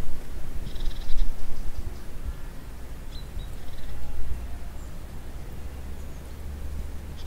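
Outdoor ambience on an open hillside: a low, gusty wind rumble on the microphone, with short chattering bird calls about a second in and again around three seconds in.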